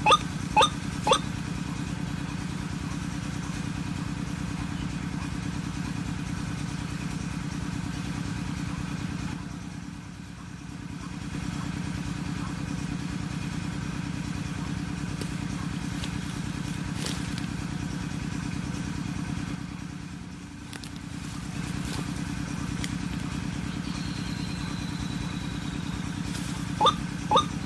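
White-breasted waterhen calls, loud pitched notes repeated about twice a second, in the first second and again near the end. In between there is a steady low hum that dips and returns twice.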